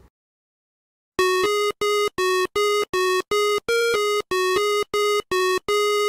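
Electronic beeping tune in a chiptune style: about a dozen short notes, about three a second, nearly all on the same pitch with one higher note partway through. It starts about a second in.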